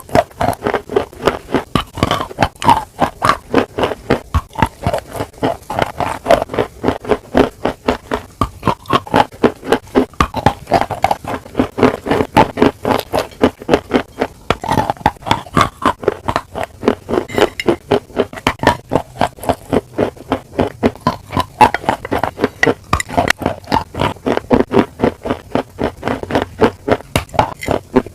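Close-miked chewing, a person eating with wet, rapid chews in a steady rhythm of about three to four a second.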